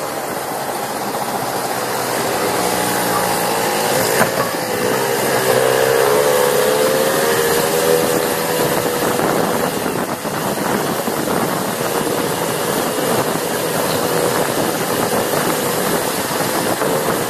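Small two-stroke moped engines running on the move, their pitch wavering up and down as the throttle changes, over a steady rush of wind noise.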